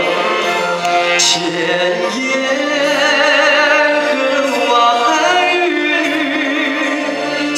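A male vocalist singing a ballad live into a microphone over instrumental accompaniment, with a wavering vibrato on the long held notes in the middle of the phrase.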